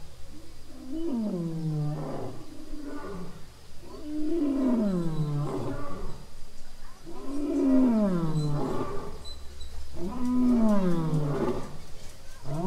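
Lion roaring in a bout: a series of long, deep calls about three seconds apart, each falling in pitch.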